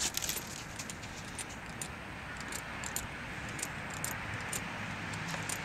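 Steady outdoor background noise, growing slightly louder toward the end, with faint scattered clicks and light jingling.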